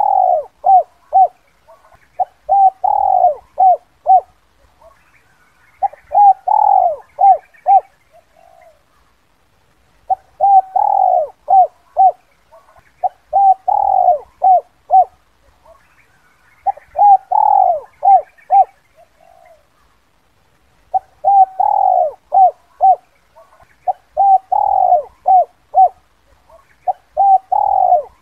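Spotted dove cooing its 'kuk 2' call, used as a lure to draw wild doves in. The same phrase repeats every three to four seconds: a longer falling coo among a few short clipped coos.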